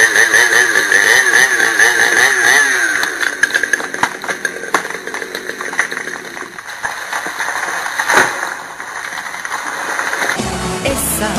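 Chainsaw running under load as it cuts into a large tree trunk, its pitch wavering. It is loudest for the first few seconds, then runs lower with scattered clicks and one sharp crack about eight seconds in.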